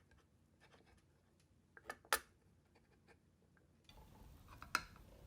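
A few faint clicks and light taps, the sharpest two about two seconds in and another near the end.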